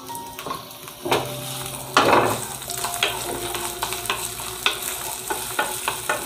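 Chopped shallots and garlic sizzling in hot oil in a frying pan, stirred with a wooden spatula that scrapes and taps against the pan. The sizzle swells about a second in.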